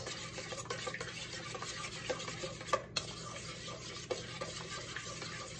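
Dip ingredients (softened cream cheese, ranch, buffalo sauce and shredded canned chicken) being stirred in a stainless steel mixing bowl. It is a steady soft scraping with a few faint clicks against the bowl.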